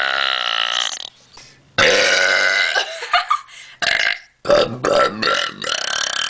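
A person burping several times in a row. A long, pitched burp ends about a second in, another starts about two seconds in, and a quick run of shorter burps follows in the second half.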